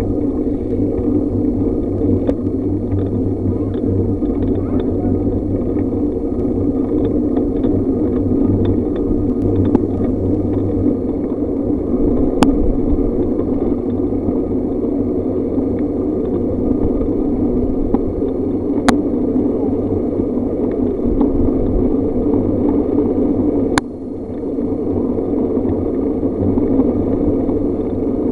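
Steady wind rush and road rumble from a bicycle and Weehoo trailer bike rolling along a paved road, with three sharp clicks spread through it.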